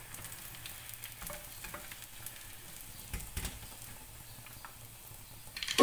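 Breaded chicken pieces deep-frying in hot oil in a saucepan: a steady sizzle with scattered light crackles and clicks as a slotted metal skimmer moves through the oil.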